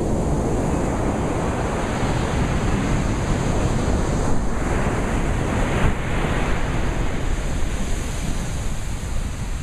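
Ocean surf: a steady rush of waves that swells about five seconds in.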